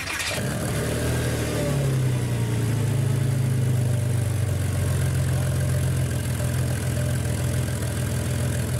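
Car engine that has just started, climbing in revs over the first couple of seconds and then running steadily at raised revs.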